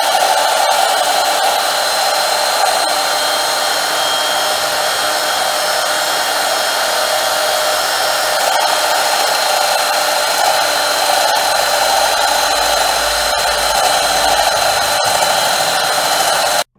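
Enomoto Kogyo Emini No.1100 benchtop lathe running steadily, its tool bit turning down a spinning wooden rod: an even whir with a faint high whine. It cuts off abruptly near the end.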